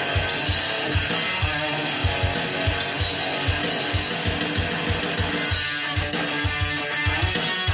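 Rock music with heavy electric guitars over a steady, driving low beat.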